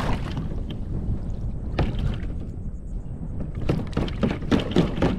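Water splashing and pouring around a kayak, with several sharp knocks and splashes in the second half.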